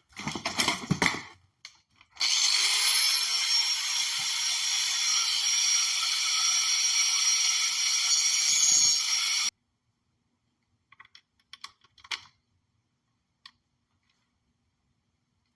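A cutoff wheel on a power tool cutting a small screw down to length: a steady, high-pitched grinding whine for about seven seconds that stops suddenly. It is preceded by a brief clatter of tools being handled and followed by a few light clicks.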